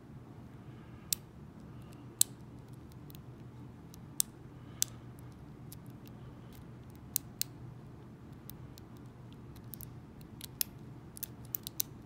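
Lock pick working the pins of a five-pin Abus Silver Rock padlock: sharp metallic clicks at irregular intervals, coming quicker in a cluster near the end.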